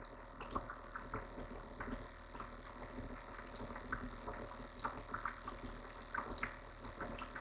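Quiet pondside outdoor ambience: a steady high-pitched drone with scattered short calls and clicks.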